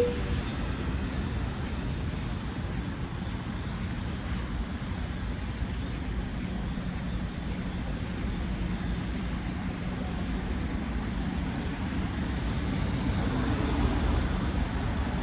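Steady road traffic noise: the low rumble of engines and tyres from passing vehicles, swelling a little as a vehicle comes closer near the end.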